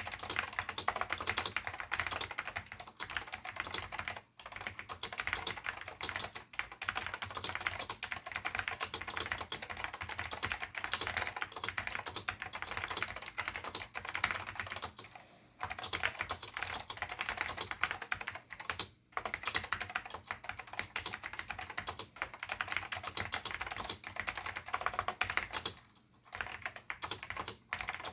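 Fast continuous typing on a Dell AT101 mechanical keyboard with Alps SKCM Salmon switches and ABS doubleshot keycaps: a dense stream of key clicks, broken by brief pauses a few times.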